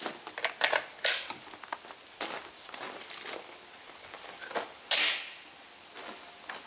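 Metallic clicks and knocks of an FN FAL rifle being loaded: a steel-cased cartridge going into the magazine and the magazine seating. About five seconds in comes one louder, short clack from the rifle's action.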